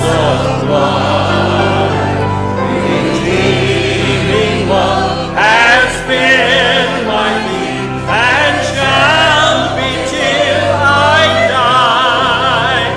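A church hymn sung by many voices together, with instrumental accompaniment.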